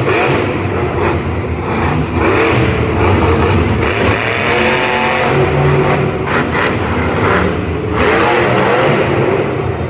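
A monster truck's supercharged V8 engine running loud, its pitch rising and falling over and over as the throttle is blipped.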